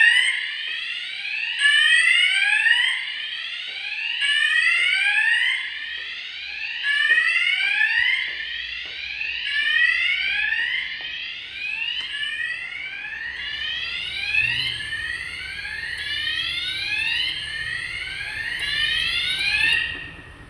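Fire alarm sounder on a zone panel system going off, a repeating rising sweep tone that runs on and cuts off near the end.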